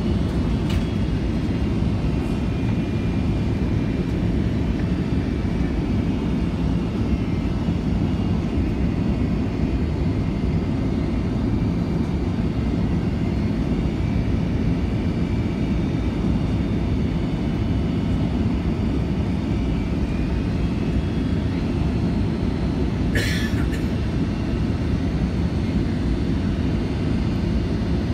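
Steady cabin noise inside a Boeing 757-200 airliner in flight: a deep, even rumble of engines and airflow with a faint high whine over it. A short hiss breaks in about 23 seconds in.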